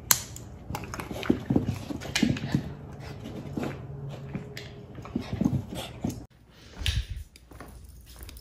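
A small dog making short whines while its harness and a retractable leash are clipped on, over sharp clicks and rustling from the buckles, leash and fleece sleeves. A low thump comes near the end.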